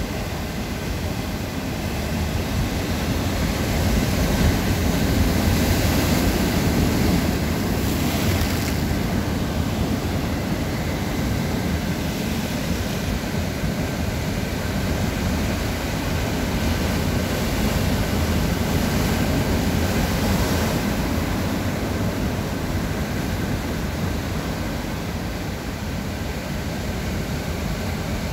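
Heavy surf from a rough sea breaking and churning over rocks, a continuous rushing wash that swells louder about four to nine seconds in.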